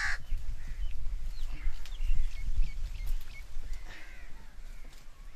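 A crow caws once right at the start, the last of a short run of caws. Small birds then chirp in short, high notes for a couple of seconds over a steady low rumble.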